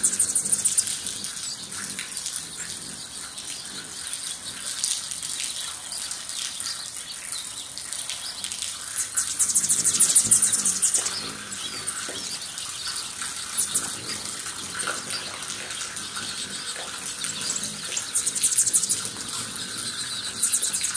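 Several hummingbirds whirring close to the microphone, their wings making a rushing hum. High, rapid, buzzy trills break in loudest about a second in, around ten seconds in, and again near the end.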